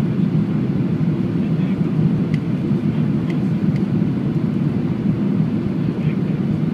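Steady low rumble inside the cabin of a Boeing 737-800 on final approach: engine and airflow noise heard over the wing.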